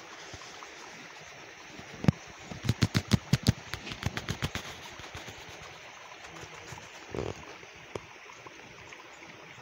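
Steady rushing outdoor background noise. A quick run of sharp clicks and knocks comes about two to four and a half seconds in, and a single dull thump comes near seven seconds.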